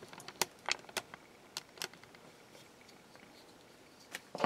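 Handling noise: a few light clicks and taps in the first two seconds, then quiet.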